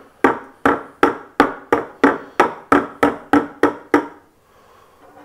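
A rapid, even run of about eleven sharp knocks on a hard object, roughly three a second, each with a brief ringing tone, stopping about four seconds in.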